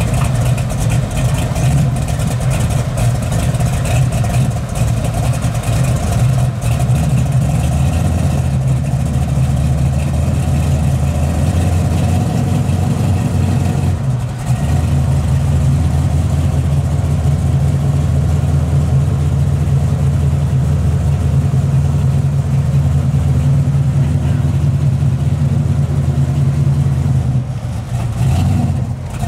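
A 1971 Chevrolet Camaro pro street car's engine idling steadily, with a short dip in level about halfway through and again near the end.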